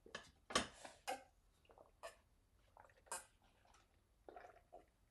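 A man gulping water from a bottle, with a short wet swallow about once a second.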